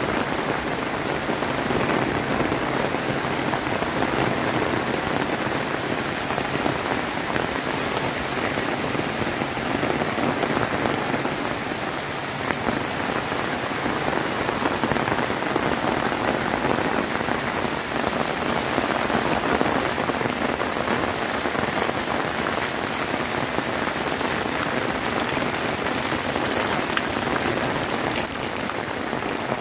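Heavy rain pouring steadily, a dense even hiss of drops hitting surfaces, with no thunder clap heard.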